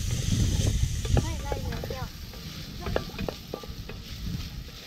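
A wooden spatula stirring rice in a stainless-steel saucepan, scraping and clicking against the pan, while the pan sizzles over a small wood fire; the stirring is louder in the first two seconds, then softer.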